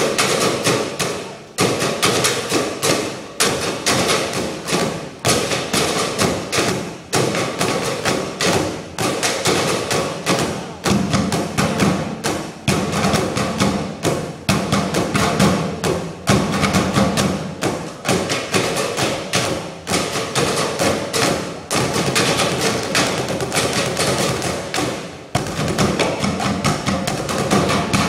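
Student percussion ensemble playing plastic and metal trash cans with drumsticks: a fast, steady rhythm of sharp hits, with deeper strokes stronger in the middle and a brief break near the end.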